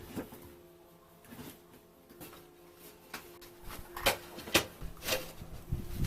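A series of light knocks and clacks, about eight in all, as household objects are handled and set down. The loudest come about four and five seconds in.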